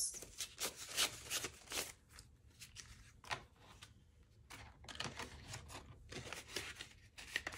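Paper banknotes being handled and tucked into a cash budget envelope: a run of short paper rustles and crinkles, quieter for a couple of seconds in the middle.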